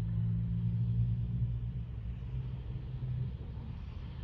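Low, steady hum of a car's engine heard from inside the car's cabin, easing off a little about three seconds in.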